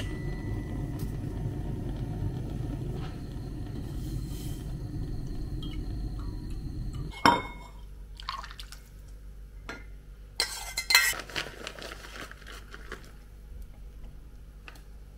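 A steady low rushing noise for about seven seconds, then a sharp knock as a steel saucepan meets a ceramic bowl and tomato soup is poured in, followed by a spoon and dishes clinking.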